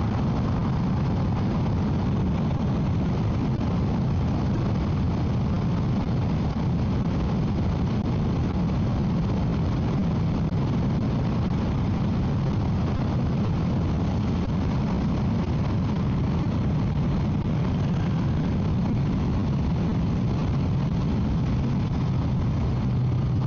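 Motorcycle cruising at steady highway speed: an even engine drone mixed with wind rushing over the microphone.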